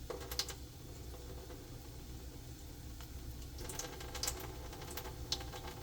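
Eggs frying in oil in a pan, a low sizzle with scattered crackling pops, over a steady low hum.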